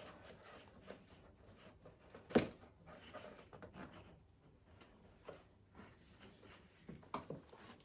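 Faint handling of Numatic vacuum cleaner bags as they are fiddled with and pushed back into their pack: soft rustling and small clicks, with one sharper knock about two seconds in.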